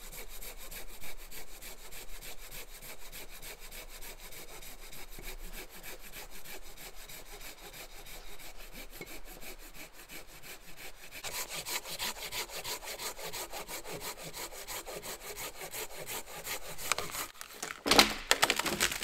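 Handsaw cutting through dry wood in a steady run of rapid strokes, growing louder about halfway through. A loud knock comes near the end.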